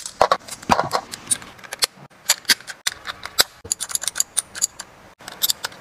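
Sharp plastic clicks and snips as keycaps are cut off a plastic sprue with scissors and clicked into a small keyboard-style number plate, irregular, with a quick run of clicks about four seconds in.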